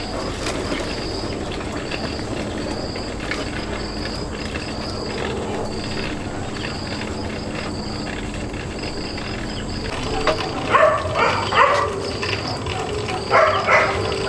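A dog barking and yipping in short bursts during the last few seconds, over a steady rural background with a faint high chirp repeating about once a second.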